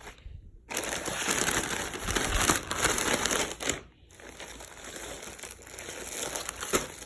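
Shirt packaging crinkling as it is handled and opened. A dense stretch of crinkling starts just under a second in and runs about three seconds, then stops briefly, and softer crinkling follows.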